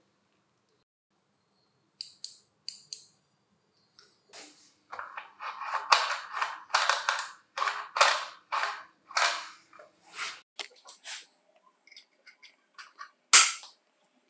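Hard plastic sharpener housing being handled: a few sharp clicks, then a run of short scraping, rubbing strokes, and one loud sharp click near the end.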